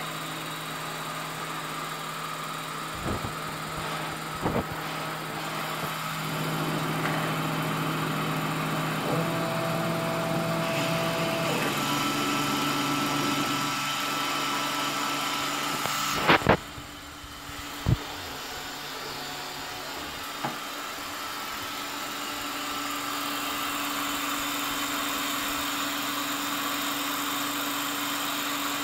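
Belt-driven drill press set up as a mill, with a cutter running through plywood to rough out a pocket. The motor and cutter give a steady hum whose tones shift a few times as the cut is fed. A few sharp knocks are heard, the loudest pair a little past halfway.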